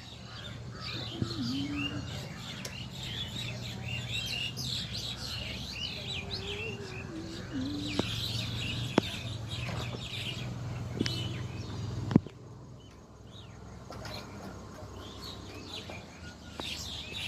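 Many small birds chirping and twittering together in a dense chorus that thins out near the end. A low steady hum runs underneath and stops about twelve seconds in, just after a sharp click, the loudest moment; a few fainter clicks come before it.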